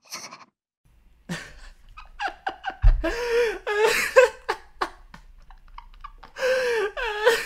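Short, high-pitched vocal sounds with breaths between them, starting about a second in, over a low hum, with one dull thump a little before three seconds.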